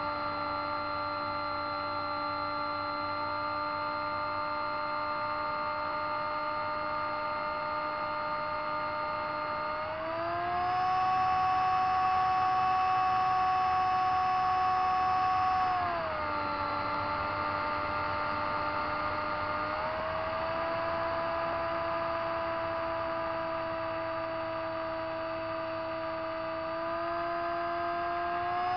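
RC seaplane's motor and propeller heard from the onboard camera, a steady hum-like whine whose pitch tracks the throttle. It steps up in pitch and gets louder about ten seconds in, drops back about six seconds later, then climbs slightly twice more near the end.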